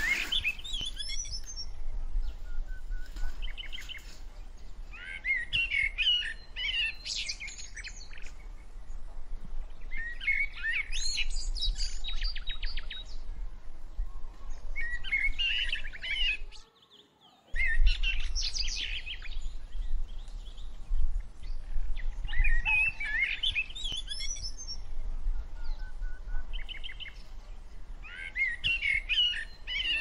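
Small songbirds chirping and singing in bursts every few seconds, some phrases with quick trills, over a low steady rumble. The sound cuts out for about a second a little past halfway.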